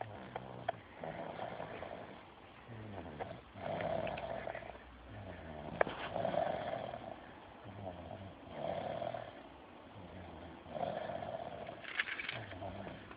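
Snoring, five slow rasping breaths about every two and a half seconds, with a couple of faint clicks between them.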